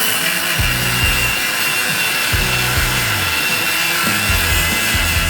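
A cordless power tool cutting, running steadily under load with a high whine, stopping right at the end. Background music with a steady bass beat plays underneath.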